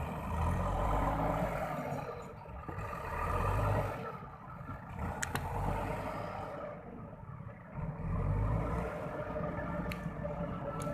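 JCB 4DX backhoe loader's diesel engine working, its revs swelling and easing several times as it takes load, with a couple of brief sharp clicks.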